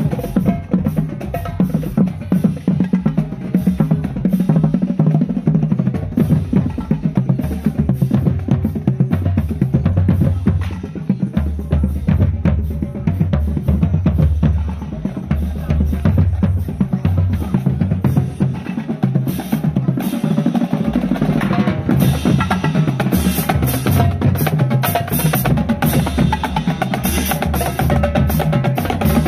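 College marching band drumline playing while marching, with rapid drum strokes over a low pulse from the marching bass drums.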